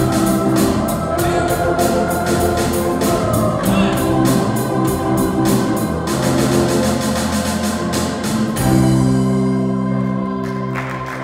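A church choir and band (keyboard with an organ sound, electric guitars, trombone) playing a song to a steady beat. About eight and a half seconds in, the song ends on a long held final chord that slowly fades.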